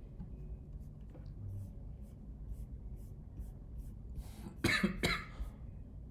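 A man coughing twice in quick succession about four and a half seconds in, after a few quiet seconds of faint ticking.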